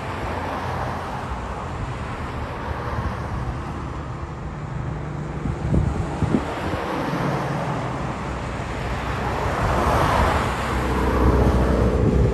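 Distant rushing drone of a Boeing 737-800 airliner's jet engines as it flies past. The drone swells over the last few seconds, with two brief knocks about six seconds in.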